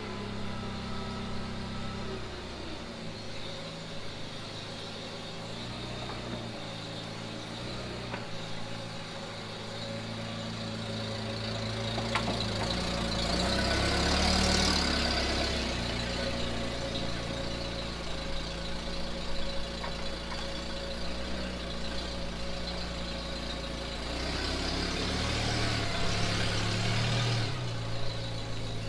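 2011 Cadillac CTS-V's supercharged 6.2-litre V8 running through a Borla exhaust, mostly idling steadily, with its sound swelling louder twice: once about halfway through and again near the end.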